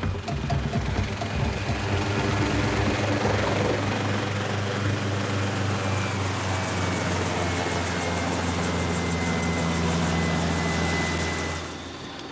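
Helicopter in flight: steady engine and rotor noise with a strong low hum, dropping away sharply near the end.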